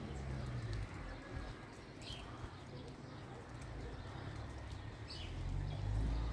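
Short high bird chirps every few seconds over a low steady hum, which swells near the end.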